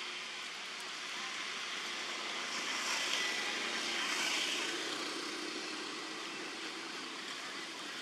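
Steady rushing noise of a distant passing engine, swelling about three seconds in and fading again.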